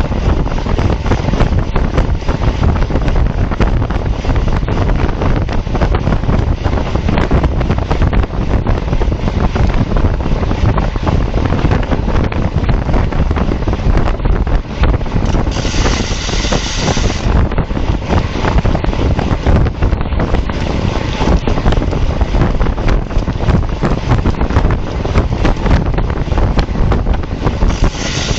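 Heavy wind noise on the microphone of a road bike moving at speed, steady throughout. A brief brighter hiss comes in for a second or two about halfway through, and again near the end.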